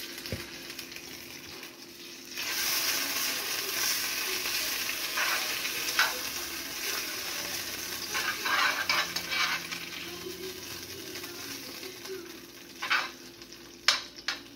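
Butter sizzling as it melts in a hot frying pan, the hiss starting about two seconds in and fading toward the end. A spoon clinks and scrapes against the pan several times, with a few sharp taps near the end.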